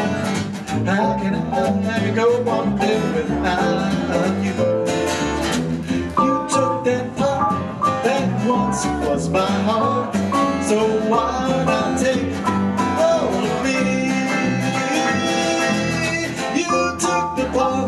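A small live acoustic band playing a song: strummed acoustic guitar over keyboard and upright bass.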